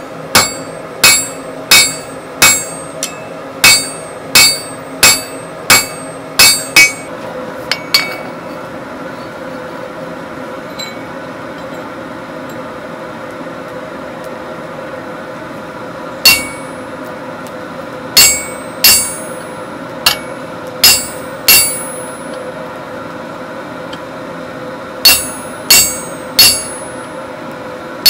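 Blacksmith's hand hammer striking hot steel on an anvil, each blow ringing sharply. The blows come about one and a half a second for the first eight seconds, stop for about eight seconds, then resume in short runs.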